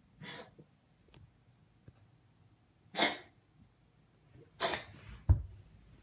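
A fluffy brown tabby cat coughing in short dry bursts, three times a second or two apart; the owner wonders whether the cold hallway brought it on. A sharp low thump comes about five seconds in.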